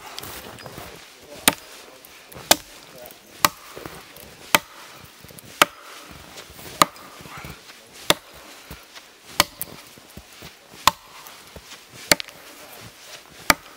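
Axe chopping into a fallen tree trunk, a sharp single strike of the blade into the wood roughly once a second, about a dozen strokes in all.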